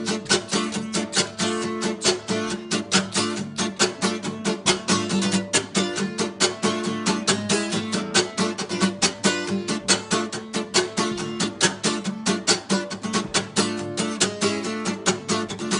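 Instrumental break of a song: guitar strumming a steady, fast rhythm with no vocals.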